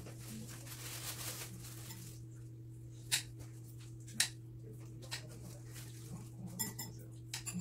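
Cutlery and dishes clinking while eating at a table: a few separate sharp clinks, two louder ones about three and four seconds in, and a quick run of light clicks near the end, over a steady low hum.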